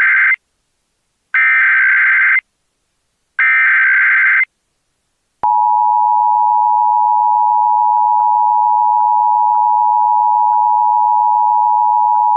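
Emergency Alert System tones: the SAME digital header sent as three roughly one-second bursts of buzzy data tones. About five seconds in, the steady two-tone EAS attention signal starts and holds loud.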